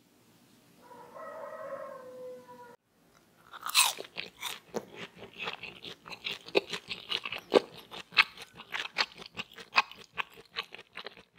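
Crispy fried potato balls being bitten and chewed: a dense run of crunches, several a second, starting about three and a half seconds in. Before it comes a brief, faint steady tone lasting about two seconds.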